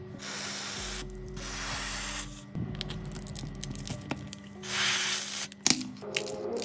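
Aerosol spray hissing in three short bursts, the third the loudest, with a sharp click just after it. Background music plays underneath.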